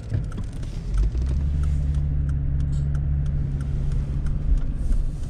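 Car engine and road noise heard from inside the cabin while driving: a steady low drone that settles in about a second in, with a few light ticks over it.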